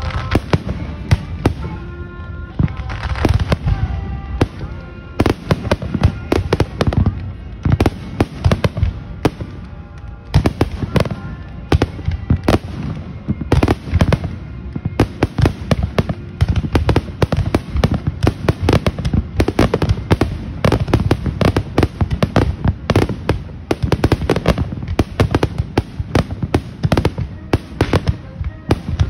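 Fireworks display: a continuous barrage of bangs and crackles from aerial shells and ground-fired bursts, many strikes a second.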